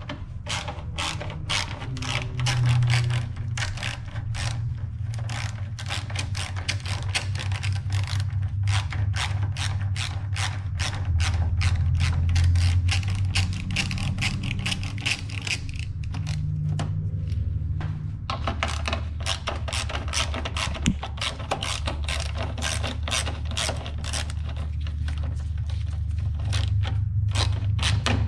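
Ratchet wrench clicking in rapid, even clicks as it unscrews 10 mm bolts, with a short lull about two-thirds of the way through.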